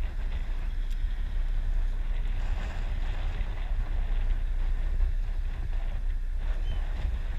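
Wind buffeting an action camera's microphone on a boat at sea: a steady low rumble with a hiss of wind and water over it.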